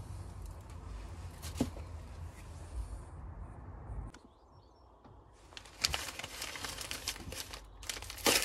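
Low handling noise with a single sharp knock, then from about six seconds in, newspaper wrapping crinkling and rustling as it is pulled open by hand.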